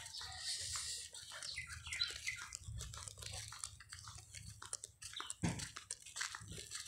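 Footsteps and small handling noises of someone walking with a phone across a dusty yard: many short scuffs and crackles, with a few faint high chirps about two seconds in.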